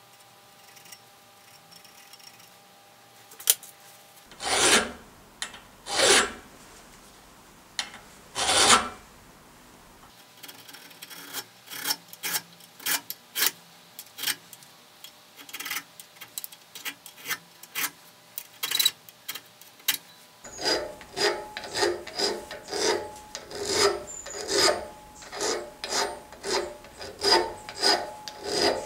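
Flat hand file rasping across the steel of a forged holdfast held in a vise, starting about four seconds in: first a few slow, long strokes, then a run of short quick strokes, then steady strokes about two a second.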